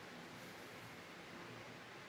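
Near silence: faint, steady room tone with no distinct sounds.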